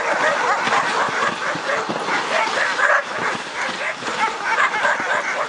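A chorus of many sled dogs barking and yipping at once, continuous and overlapping. These are the resting dogs in the kennels getting excited as a team comes back in, because they know it will be their turn to run.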